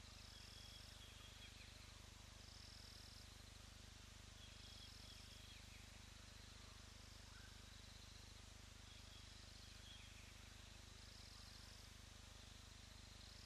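Faint insect chirping, a short high-pitched trill repeating about every two seconds over a low steady hiss.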